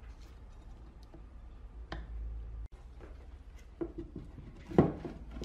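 Light clicks and handling knocks as the amplifier board and wooden back panel of a speaker cabinet are fitted, with one sharper wooden knock near the end as the panel is pushed into the cabinet. A low steady hum runs underneath.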